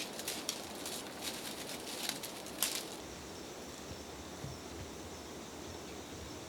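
Outdoor nature ambience: a run of short sharp rustles and clicks through the first three seconds, then an abrupt change to a steadier background with a faint, steady high hum.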